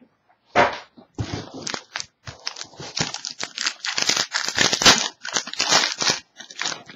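Foil trading-card pack being torn open by hand: the wrapper rips and crinkles in a dense run of sharp crackles, thickest from about three to six seconds in.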